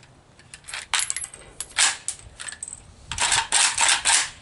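Metallic clicks and clinks of an AK-47 rifle being cleared of a double feed, with cartridges and steel parts knocking together. It starts with a few sharp clicks, then a louder clack, then a dense burst of rattling near the end.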